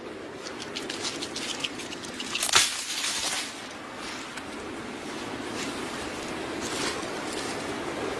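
Wet squishing and small crackling clicks from an animal moving in icy river water at the snow-covered bank, with one louder knock about two and a half seconds in. Under it runs a steady rush of flowing water.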